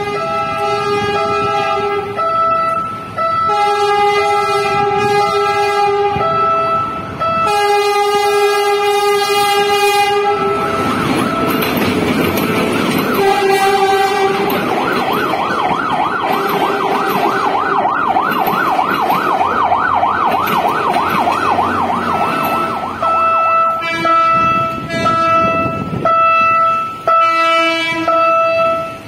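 A train horn sounds in a series of long blasts with short gaps, over the rumble of the passing commuter train. In the middle a warbling siren rises and falls rapidly for several seconds, then the long horn blasts return near the end.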